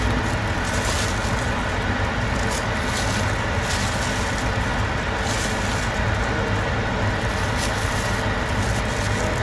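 Pot of broth at a rolling boil on an electric stove, a steady rushing bubbling with scattered faint crackles, as pork bones are lowered into it.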